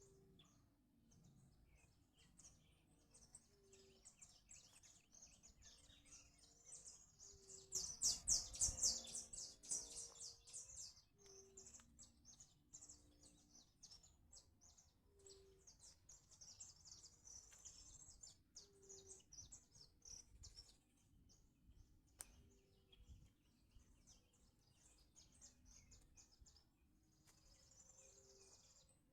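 Several wild birds chirping and singing, with many short high notes throughout and a louder, fast run of chirps about eight seconds in. A short low note repeats every few seconds underneath.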